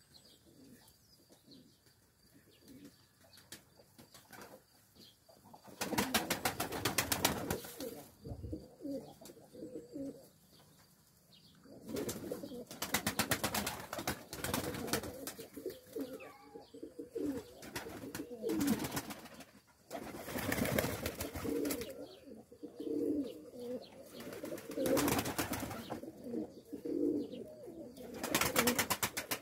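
A flock of fancy pigeons, fantails among them, cooing continually, with several loud bouts of fast, even clatter lasting a second or two each.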